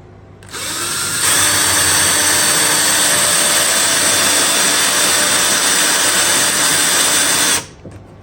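Power drill driving a self-drilling anchor into drywall: the motor starts about half a second in, picks up speed about a second in, runs steadily for about six seconds and stops suddenly near the end.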